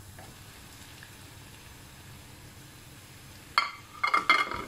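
Onions and ground beef frying in oil in a pan, with a faint steady sizzle. About three and a half seconds in, a wooden spoon starts scraping and knocking in the pan as the mince is stirred and broken up.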